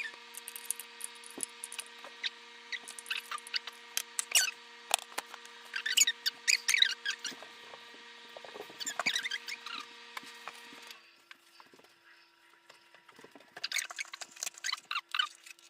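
Irregular small wet clicks and sticky squelches of white glue going onto shaving cream for slime. A steady hum with several tones runs underneath and stops about eleven seconds in.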